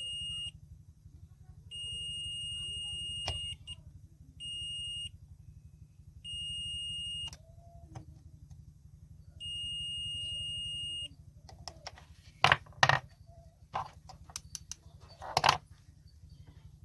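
A steady high electronic beep sounds five times in uneven lengths, some about a second or more and some short. Then come several loud sharp clicks and knocks of handling.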